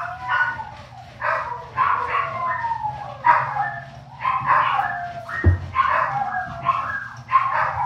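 Dogs howling and barking in a fast run of short calls, each falling in pitch, about two a second.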